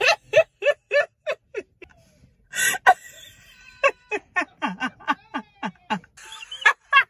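Loud, excited shrieking from a person: short high-pitched yelps in quick succession, about three a second, breaking off about two seconds in, then a noisier cry and more yelps that slide down in pitch.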